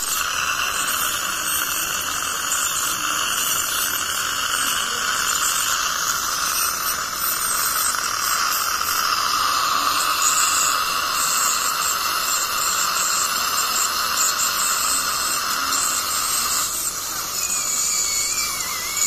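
Ultrasonic dental scaler running against the lower front teeth with its water spray, a steady high hiss, as it scales tartar off along the gum line. The sound shifts slightly near the end.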